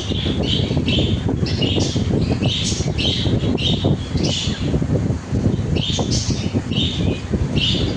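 A bird giving short, high chirping calls again and again, a little under two a second, breaking off for a moment about halfway through. Under them runs a steady, crackly low rumble.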